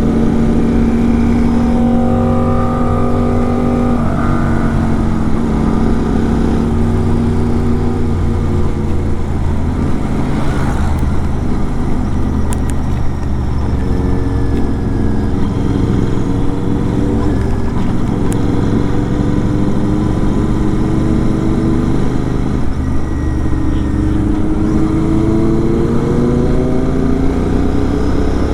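Superbike engine running under way, its pitch holding steady at first and then climbing in several long rises as the throttle opens, the last and clearest near the end.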